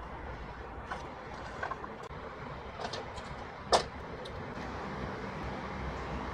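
Light clicks and taps of small plastic toy pieces being handled and fitted together, with one sharper snap a little under four seconds in, over a steady background hum.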